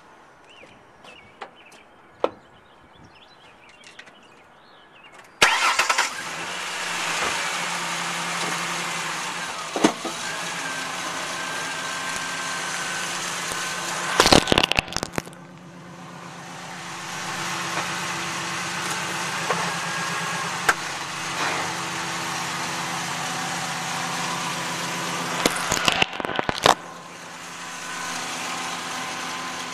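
Pickup truck engine running close by, heard loud from a camera lying on the ground, coming in suddenly about five seconds in. The truck drives over the camera twice: a cluster of loud crunching knocks as the tyres roll over it near the middle, and again near the end.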